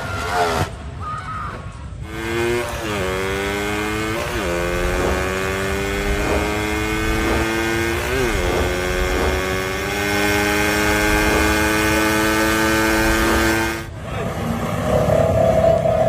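Motorcycle engine at high revs under hard acceleration, a steady pitched drone that wavers and resettles at two gear changes, about four and eight seconds in. It cuts off abruptly near the end.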